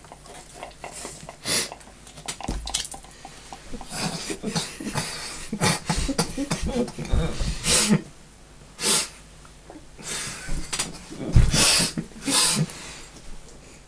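Two people drinking from paper cups, then spluttering, coughing and laughing in short irregular bursts, the loudest near the end.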